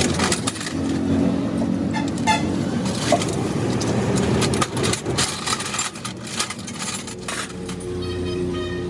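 Metallic clinks and knocks from repair work over a steady low rumble of vehicles. A steady tone with several pitches comes in near the end.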